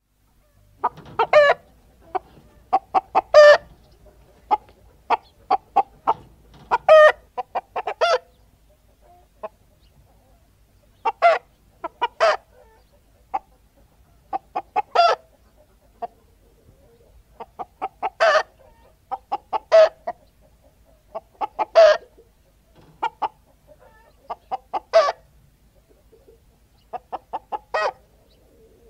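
Domestic hens cackling: runs of short clucks that build into loud, drawn-out squawks, repeated every few seconds with brief quiet gaps between.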